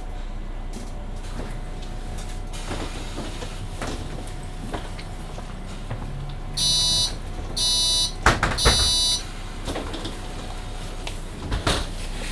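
Inside a Mercedes-Benz Citaro C2 hybrid city bus: two short electronic warning beeps from the door system, then the doors close with a loud clatter and hiss, and a further knock a few seconds later, over the bus's steady low hum.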